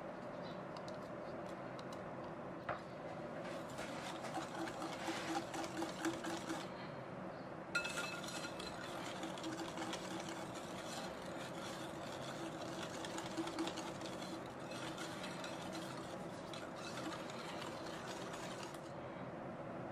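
Wire whisk stirring chocolate batter by hand in a glass bowl: a continuous quick swishing and scraping of the wires against the glass, with one sharper tap about eight seconds in.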